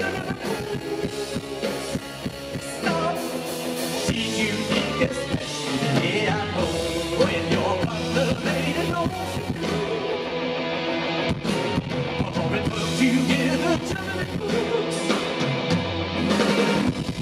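Live rock band playing: male lead vocals over electric guitar, drums and keyboards, recorded from the crowd.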